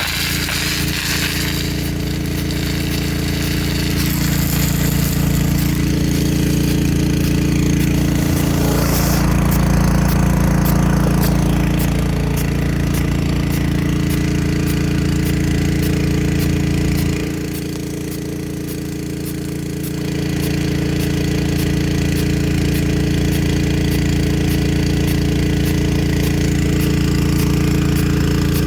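Nelson P100 big gun sprinkler with a .50-inch taper bore nozzle running, its jet hissing and its drive arm clicking about twice a second over the steady hum of the pump feeding it. The low hum drops away for a few seconds about two-thirds of the way through, then comes back.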